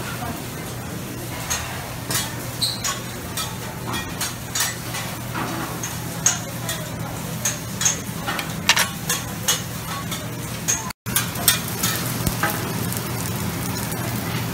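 Steady sizzle of a restaurant flat-top griddle over a low hum, with frequent light clinks of serving tongs against plates. The sound drops out for an instant near the end.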